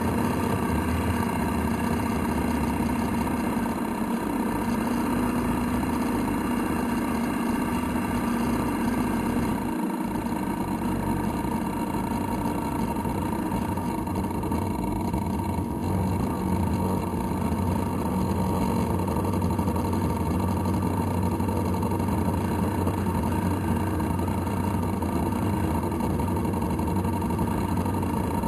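Radio-controlled model boat's motor running steadily at a constant speed, heard from on board the boat, with a steady low hum and a high whine.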